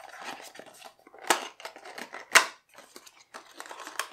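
A small printed cardboard box being handled and its tuck-in lid pulled open: card scraping and rustling, with two sharper, louder snaps of card about a second apart.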